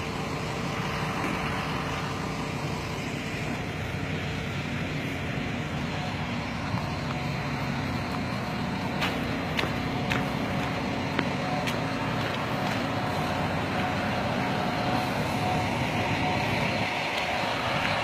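Fire engine running steadily, with a faint steady hum over it and a few light clicks in the middle.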